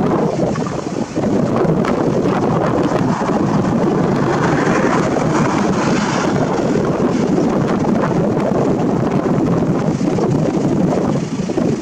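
Wind buffeting the microphone: a loud, steady, rough rushing noise that swells a little in the middle.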